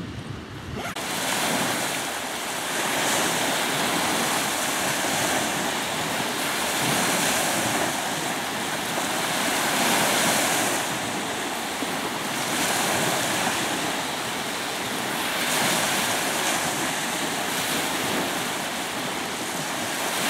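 Small Baltic Sea waves breaking and washing up the sandy shoreline close by, a steady rush that swells and ebbs every few seconds. It gets louder about a second in.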